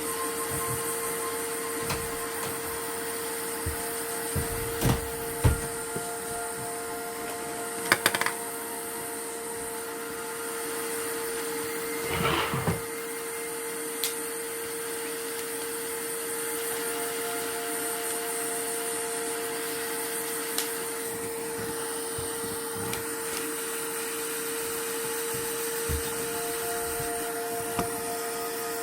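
Steady hum of a small electric blower motor on a repair bench, with a constant tone, and a few light clicks and taps of hand tools scattered through it.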